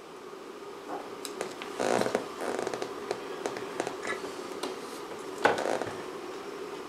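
Hands handling and bending a short piece of wire, with small clicks and rustles over a faint steady hum. There is a louder rustle about two seconds in and a sharp click about five and a half seconds in.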